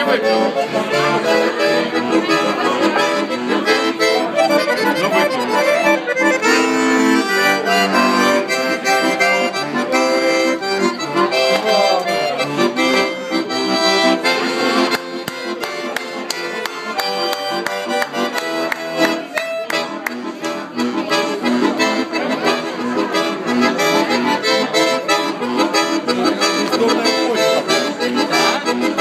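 White Zonta button accordion played live: a continuous tune of fast-changing melody notes over chords, a little softer in the middle stretch.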